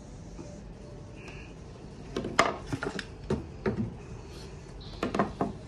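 Plywood front panel knocking and clattering against the wooden frame of a box as it is handled and fitted into place. A run of sharp knocks comes about two seconds in, and a shorter cluster near the end.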